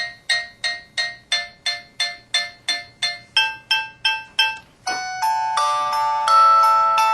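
Samsung SCH-V500 mobile phone playing built-in ringtones through its small speaker: a quick, evenly repeated bell-like electronic note about three times a second, shifting pitch about three seconds in. About five seconds in, a different melody of held chiming notes begins.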